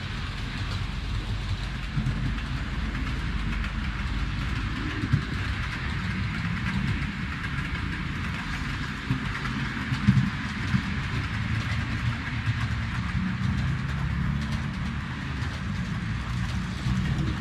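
Model trains running on an H0 layout: a steady rolling noise of metal wheels on track with a low rumble, and a few louder clicks over rail joints or points.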